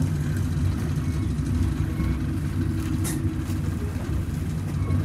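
Low steady rumble of a running vehicle, with one sharp click about three seconds in.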